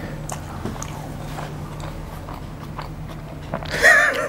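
A man chewing a mouthful of chicken burger close to the microphone, with small wet clicks and smacks of the mouth. Near the end comes a short vocal sound, a hum or laugh.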